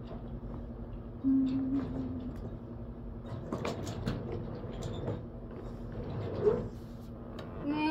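A short hummed note held on one pitch, then faint scattered clicks and rustling.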